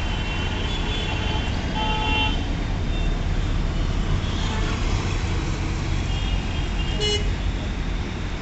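City road traffic: a steady rumble of cars, a bus and motorcycles passing, with car horns tooting several times, the clearest toot about two seconds in and a short one around seven seconds.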